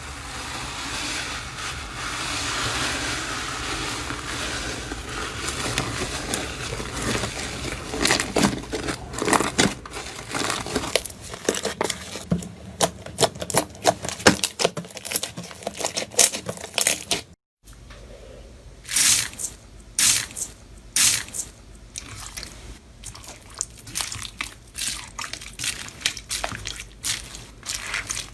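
Slime being worked by hand: a steady squishy, rustling stretch at first, then a run of sharp pops and crackles. The sound breaks off briefly about two-thirds of the way in, and the pops and crackles carry on after it.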